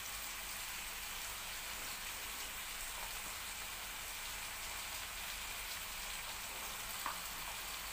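A pan of cabbage sauce with vegetables and mackerel sizzling steadily over a gas flame. There is one faint tick near the end.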